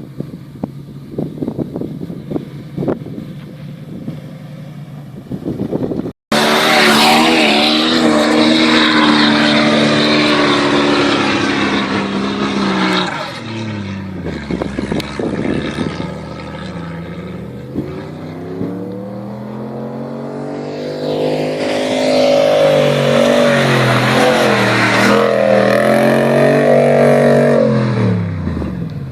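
Off-road 4x4 engine pulling hard at high revs on a sand dune. The revs drop about halfway through, climb again and hold high, then fall away near the end. Before that, an abrupt cut about six seconds in; until then the engine is fainter, with wind.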